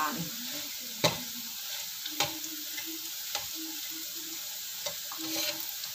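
Potato sticks sizzling as they fry in hot oil in a wok, with a spatula stirring them and knocking against the pan four times.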